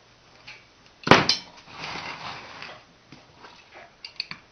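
Handling sounds at a wooden base as a nail is set to be hammered: a sharp knock about a second in, some rustling and scraping, then a few light taps near the end as the hammer starts the nail.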